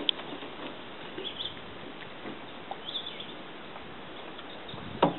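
Open-air lake ambience: a steady hiss with a few faint bird chirps, and one sharp knock about five seconds in.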